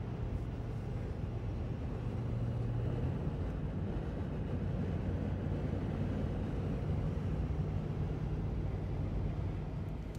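Steady road noise inside a vehicle cabin at highway speed: an even hum of engine and tyres.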